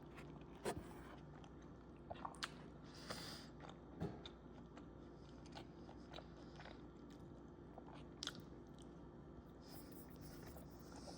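A person eating: quiet chewing with a few short crunchy bites and clicks spread through, the most distinct about a second in and again about four seconds in.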